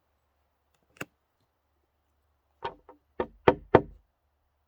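A single sharp click about a second in, then a quick run of five knocks or taps, the last two loudest.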